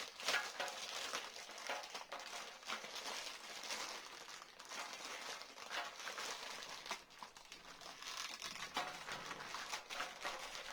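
Plastic packaging crinkling and crackling as a bag of small plastic toy tools is opened and handled, with many quick irregular crackles.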